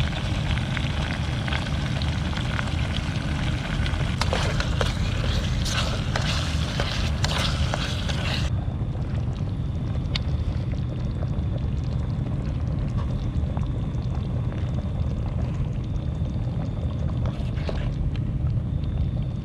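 Cooking on a portable gas stove: a foil pack of curry sauce is squeezed and rustled into a pot of chicken, then the curry simmers in the pot, over a steady low rumble.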